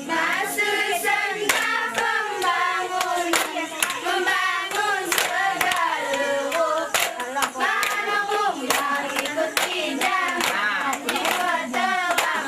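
A group of girls singing a mesekat chant together while clapping their hands, with many sharp, uneven claps over the voices.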